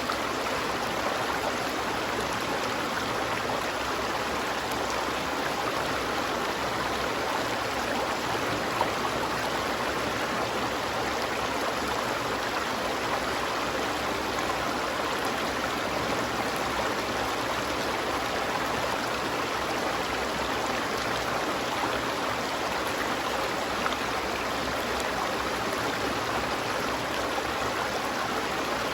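A stream of water flowing steadily, an unbroken rushing and babbling with no change in level.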